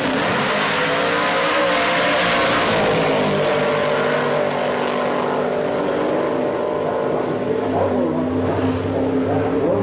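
Two drag-racing hot rods, a Hemi-powered 1941 Willys coupe and an old pickup, launching off the start line and running flat out down the strip. Their engine note rises in pitch over the first few seconds, then holds and fades as the cars pull away into the distance.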